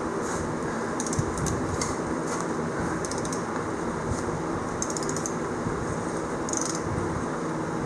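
Steady fan-like background hum, with a few brief, light metallic jingles and scrapes from the inner axle nut being worked onto the front axle shaft by hand.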